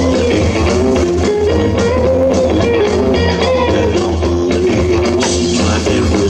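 Background music: an instrumental stretch of a rhythm-and-blues song, with guitar over bass and a steady drum beat and no singing.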